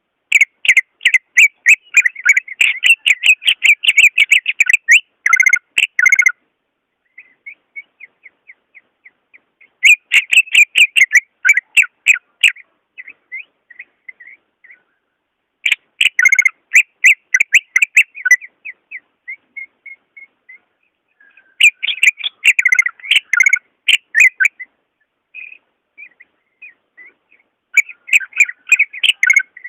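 Cucak ijo (green leafbird) singing: five bursts of rapid, high whistled notes a few seconds apart, the first and longest lasting about six seconds, with softer scattered notes in between.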